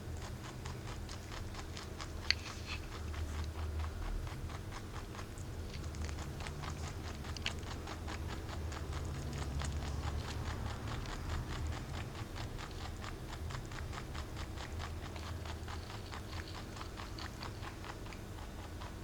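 Mini-Lop rabbit rapidly chewing carrot peel: a fast, even run of small crunching bites, several a second, with one sharper click about two seconds in.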